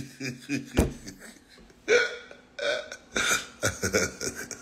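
A man making a series of short, throaty burp-like noises, four or five in a row, in the middle of reacting with disgust. A single sharp knock comes about a second in.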